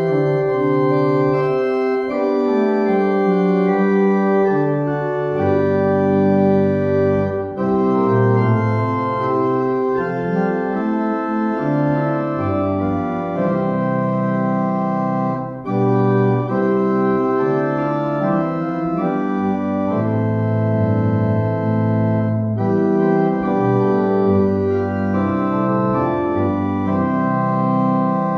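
Church organ playing the postlude: full, sustained chords over a moving bass line, with brief breaks between phrases.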